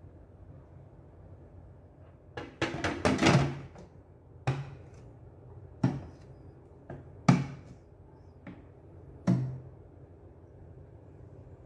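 Plastic camera dry box being closed: a quick cluster of knocks as the lid goes on, then its clip latches snapping shut one at a time, four sharp plastic clicks a second or so apart.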